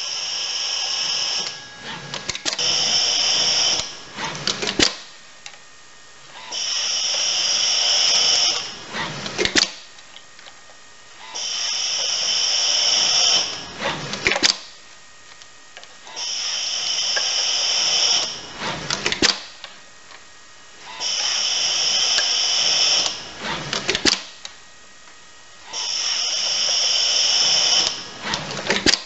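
ABB YuMi dual-arm robot work cell running a repeating cycle: a steady whir of about two seconds, then rattling clicks ending in a sharp click, repeating about every five seconds.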